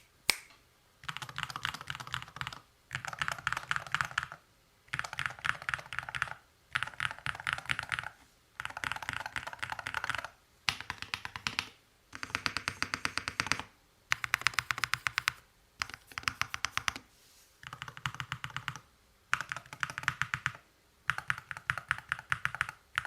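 Typing test on an Akko MOD007 V5 HE keyboard with linear Hall-effect magnetic switches and PBT keycaps in an aluminium case. There are short runs of fast keystrokes, many per second, broken by brief pauses. The bottom-out is a fairly loud, plastic-sounding clack, which the reviewer finds usual for cheap Hall-effect switches.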